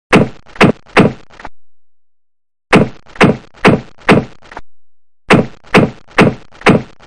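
Three runs of sharp whacking hits, about two a second, with a pause of about a second between runs. Each run cuts off suddenly.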